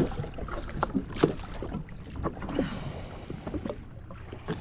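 Wind buffeting the microphone over a low rumble of water, with scattered light knocks and clicks.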